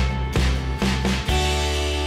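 Instrumental music with notes struck on a regular pulse, about two a second.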